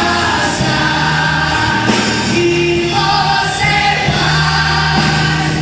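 Music: a choir singing a gospel-style song over instrumental backing with a steady bass line.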